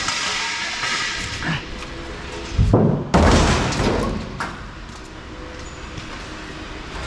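Scrap metal thudding and clattering: a heavy thump about two and a half seconds in, then a loud rattling burst lasting a second or so.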